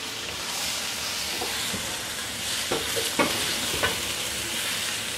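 Squid pieces sizzling with garlic and ginger in a nonstick wok as they are fried until their liquid cooks off. A spatula scrapes and knocks against the pan three times in the second half.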